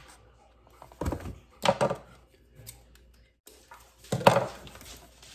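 Handling noise of a rolled-paper tube, a cardboard box and scissors on a countertop: a few short knocks and rustles, the loudest about four seconds in.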